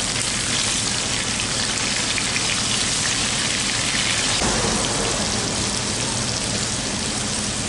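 Shallots, red chilies and halved tomatoes sizzling steadily in hot oil in a frying pan.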